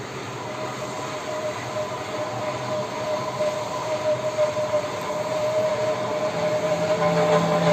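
Machine tool cutting a steel separator pipe: a steady metallic whine over the running noise of the machine, growing louder, with a lower hum joining about six seconds in.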